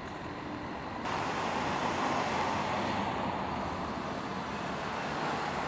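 Steady hiss of road traffic, growing louder about a second in.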